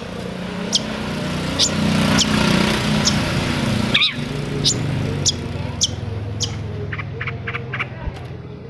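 Long-tailed shrike (cendet) calling: sharp high notes, each sweeping down in pitch, repeated about every half second, then a quick run of short chips near the end. A low rumble swells behind it in the first half and fades.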